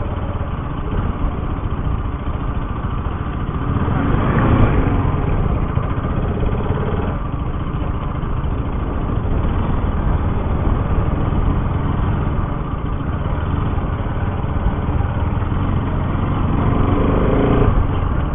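Bajaj Pulsar RS200's single-cylinder engine running under way on a rough, wet dirt track, heard from the rider's position with a steady rush of noise. The engine note rises briefly about four seconds in and again near the end.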